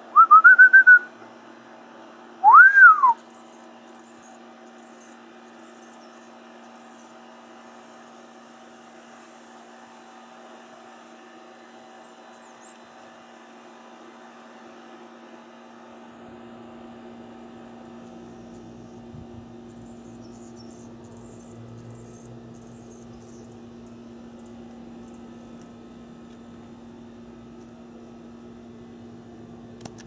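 Two short, loud whistled notes in the first few seconds, the second rising and then falling in pitch. After them a steady low hum runs on with faint background noise.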